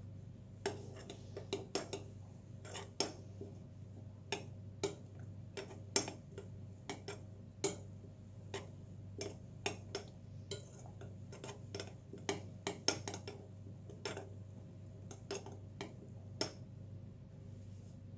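A metal fork clinking against the side of a glazed ceramic bowl while beating a thin batter, in quick irregular taps of two or three a second that stop near the end.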